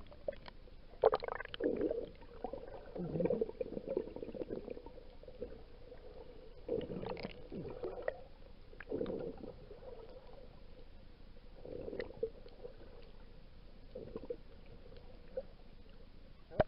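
Sea water sloshing and gurgling in irregular muffled bursts, every second or two.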